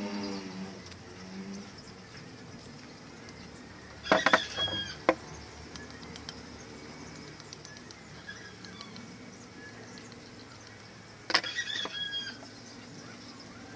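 Blue PVC pipes and fittings knocking and clicking together as they are handled and pushed into joints, with short squeaks, in two bursts about seven seconds apart.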